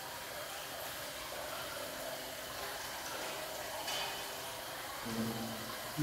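Steady wet, watery hiss, without clear strokes or splashes. A low humming tone joins about five seconds in.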